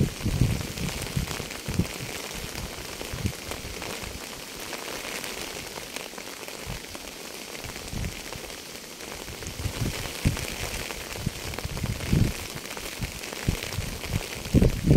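Steady rain falling: a continuous hiss with a few scattered low thuds at irregular moments.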